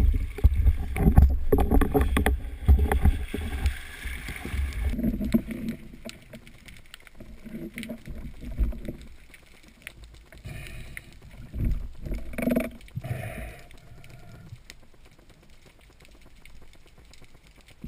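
Water sloshing and gurgling around a diver's camera: loud rumbling with many small knocks for the first few seconds, then quieter with scattered splashes.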